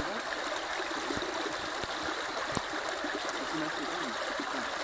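Water of a small stream running steadily, an even rushing.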